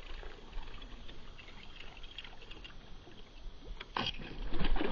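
Faint patter and light splashing of a topwater bait being worked across the water surface on the retrieve, with a few sharper splashes about four seconds in and louder noise near the end.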